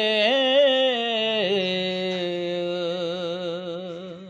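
A man singing unaccompanied, holding one long note of a Punjabi devotional song. The note turns in pitch about a second in, then wavers in a steady vibrato, and fades away near the end.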